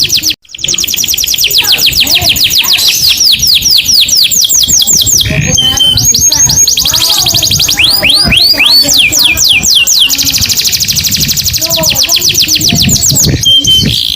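Domestic canary singing: long, fast trills of rapidly repeated high notes, with a run of slower, downward-sweeping notes about eight to ten seconds in. The sound drops out briefly about half a second in.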